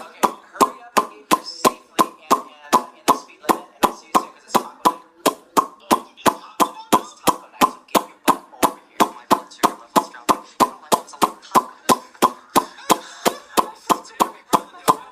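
A person popping their lips in a steady run, about three sharp pops a second.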